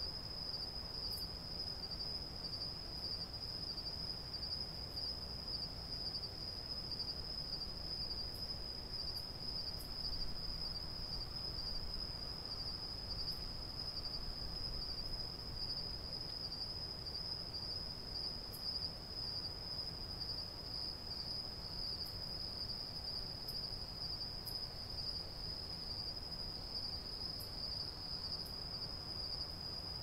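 Crickets trilling in a steady, unbroken night chorus, one high, even pitch, over a low rumble of light wind, with a few faint high ticks scattered through.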